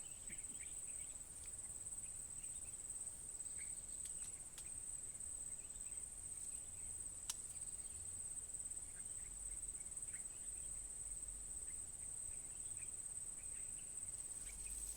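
Insects trilling steadily: a continuous high-pitched, finely pulsing chirr, with faint short chirps scattered underneath and a single sharp click about halfway through.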